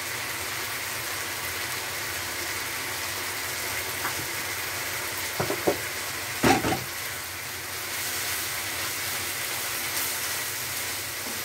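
Lamb, beansprouts and peppers sizzling steadily in a hot wok over a gas flame, as a stir fry nears done. A few short knocks break in about halfway through, the loudest about six and a half seconds in.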